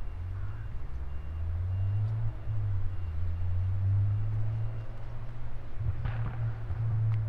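Tuned Mitsubishi Lancer Evolution X's turbocharged 2.0-litre four-cylinder running at a low, fairly steady engine speed, with a short burst of higher noise about six seconds in.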